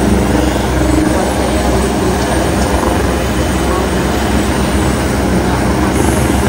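Helicopter running with its rotor beating in a steady, loud low drone.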